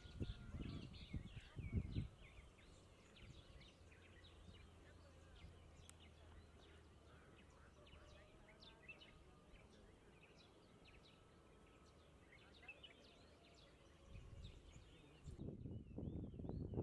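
Faint chorus of birds chirping, many short calls one after another. A few low thumps come in the first two seconds, and a low rumble comes in from about fifteen seconds on.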